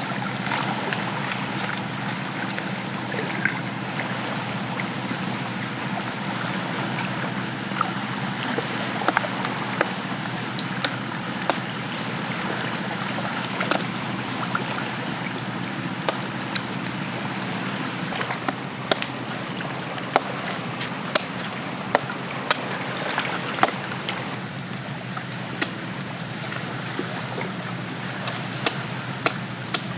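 Water trickling and sloshing, with scattered sharp clicks and taps that become more frequent after the first several seconds.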